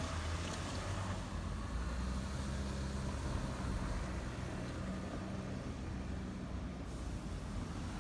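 A vehicle engine running at a low, steady idle, with street traffic noise around it.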